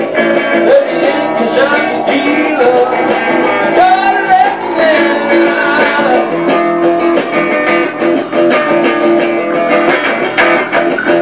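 Electric guitar and bass guitar playing a groove over a drum machine, an instrumental stretch with bending guitar notes between about two and five seconds in.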